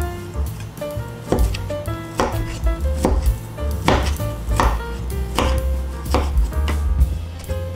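Chef's knife cutting on a wooden cutting board: slicing onion, then cutting chicken-breast cubes, with a sharp knock of the blade on the board roughly once a second.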